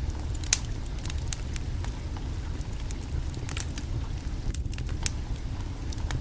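Wood fire crackling, with sharp irregular pops over a steady low rumble; one louder pop about half a second in.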